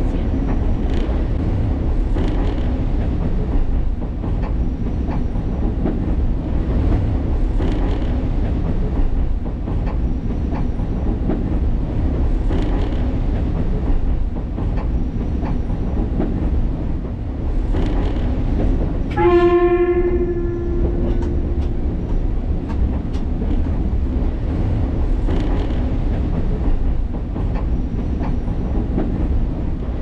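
Alishan Forest Railway narrow-gauge train running, with a steady rumble and wheels clicking over rail joints every few seconds. About two-thirds of the way in the train horn sounds once, a steady-pitched blast of about two and a half seconds.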